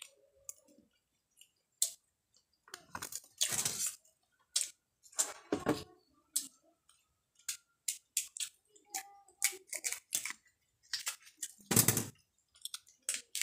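Young jengkol pods being pried and peeled open by hand, with chewing: a string of sharp clicks and cracks, with longer, louder bursts about three and a half seconds in and again near the end.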